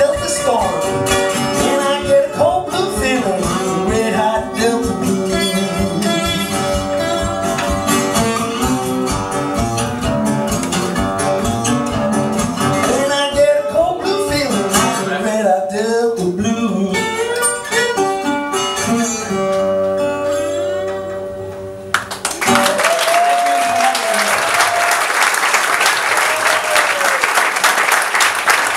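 Solo blues played on a metal-bodied resonator guitar, closing with gliding notes and a few held notes that ring out. About 22 seconds in, applause breaks out suddenly and carries on.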